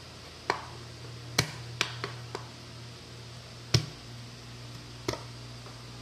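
Chef's knife slicing garlic on a plastic cutting board: about seven sharp, irregularly spaced knocks of the blade on the board, the loudest near the middle, over a steady low hum.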